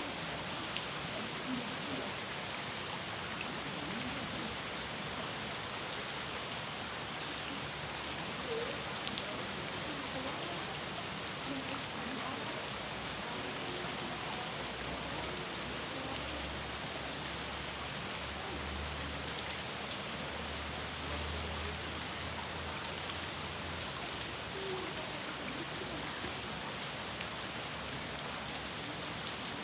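Steady rain falling on a pond: an even hiss of many drops, with a few sharper single drops striking close about nine and thirteen seconds in.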